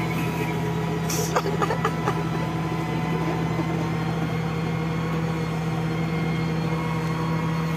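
Diesel engine of a heavy hydraulic construction machine running at a steady, even pitch, heard from the cab. A few faint clicks and rattles come about a second or two in.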